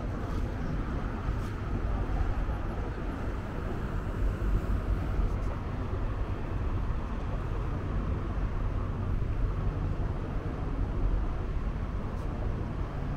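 Tour boat's engine running steadily, a continuous low drone under a hiss of broad noise.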